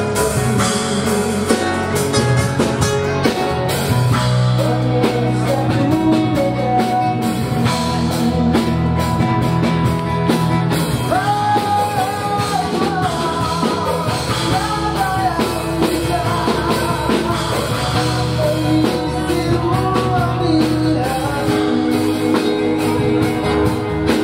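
Live band playing a song on acoustic guitars, electric bass guitar and drum kit, with a voice singing.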